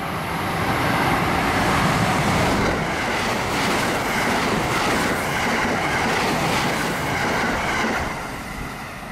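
Thunderbird limited express electric train passing through the station at high speed without stopping: a loud rush of wheel and air noise with the clatter of wheels over the rails, dying away near the end as the last car goes by.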